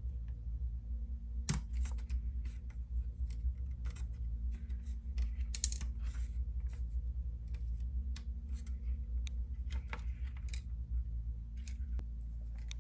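Irregular light clicks and taps of hands working a plastic HO-scale locomotive shell, positioning a headlight inside it, over a steady low hum.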